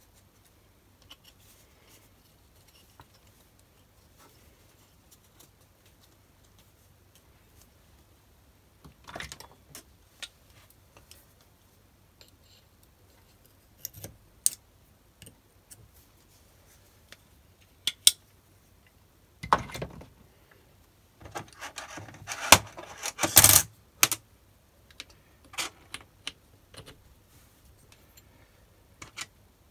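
Small steel parts of a BS-0 dividing head clicking and clinking as the index plate, sector arms and crank are handled and fitted. Scattered single clicks, with a denser run of clattering about two-thirds of the way through.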